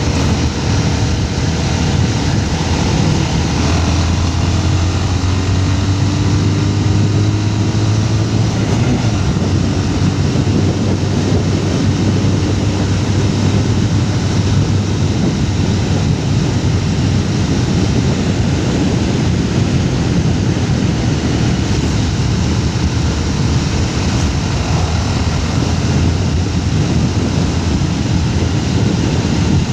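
Motorcycle on the move: engine running under a steady rush of wind and road noise at the helmet. A low engine hum grows stronger from about four seconds in and fades back into the rush roughly ten seconds later.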